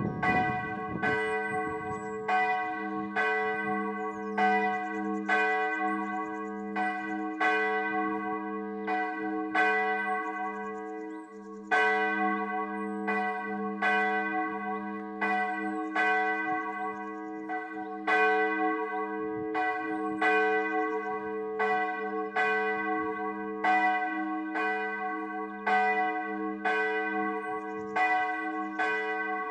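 Church bell ringing in a wooden bell tower, its clapper striking steadily a little more than once a second while the tone rings on between strokes. One stroke drops out about eleven seconds in before the rhythm picks up again.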